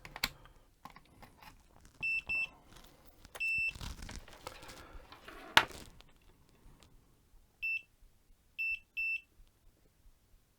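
Multimeter in continuity mode beeping as its probes touch the soldered headphone plug connections: two short beeps about two seconds in, a longer beep a second and a half later, and three short beeps near the end, each beep showing a connection conducts. Probe and handling clicks come between the beeps in the first half, with a sharp click about five and a half seconds in.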